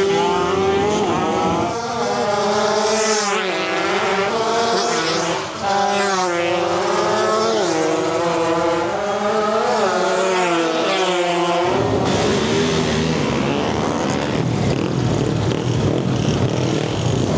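Small motorbike engines revving hard down a drag strip, their pitch climbing and dropping again and again as they shift through the gears. About twelve seconds in it cuts to the dense, steady din of a crowd of motorbikes running and revving together.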